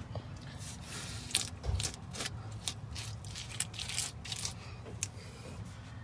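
Gloved fingers pressing and smoothing a wet patching mix into holes between pond rocks: a series of short, gritty scrapes against the rough pool finish, at an uneven pace.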